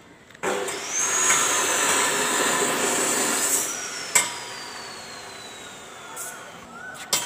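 A motor starts suddenly with a loud grinding noise and a high whine. After about three seconds it winds down, the whine falling slowly in pitch as the noise fades. There is a sharp knock about four seconds in.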